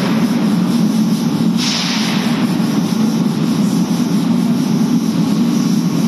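Workshop machinery running with a steady low hum, and a hiss that swells about one and a half seconds in and fades.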